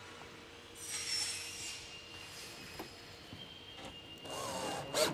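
Cordless drill driving a stainless steel flathead screw into the mitred corner of aluminum brick mold cladding to draw the miter tight. A short burst comes about a second in, and near the end the motor whirs up in pitch.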